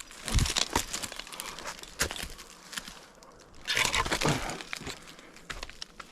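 Rough crunching and scraping with irregular sharp knocks: climbing spurs biting into pine bark and gear rubbing on the trunk during a climb. The longest and loudest scrape comes a little under four seconds in.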